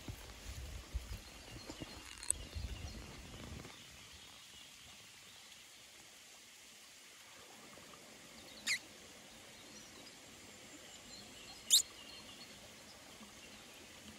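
Two brief high chirps, each falling quickly in pitch, about three seconds apart, from a small animal, over a quiet background hiss. For the first few seconds there is low rumbling noise.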